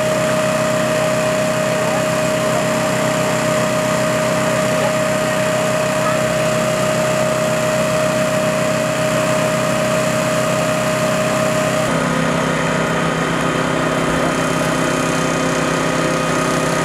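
Small engine running steadily at an even pitch; about twelve seconds in its drone changes abruptly to a slightly different tone.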